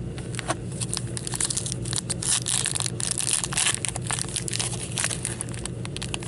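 Plastic wrapping crinkling and crackling as gloved hands handle trading cards, loudest from about one to four seconds in, over a steady low hum.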